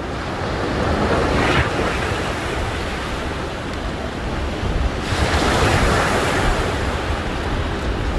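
Sea waves washing in on the shore, swelling twice, about a second in and again around five seconds in, with wind buffeting the microphone.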